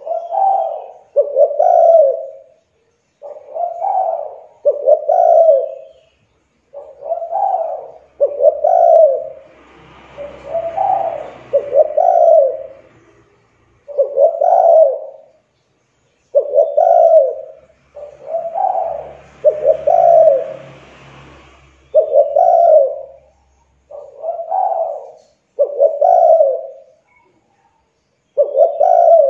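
Spotted dove (tekukur) cooing over and over in repeated short phrases of low, throaty notes. A faint rushing noise sits in the background twice.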